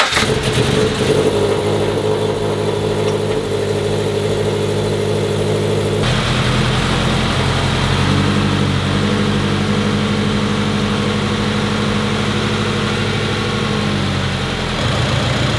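Turbocharged Subaru BRZ's 2.0-litre flat-four idling just after starting up, run to burp air out of the cooling system. The idle note changes about six seconds in and again near the end.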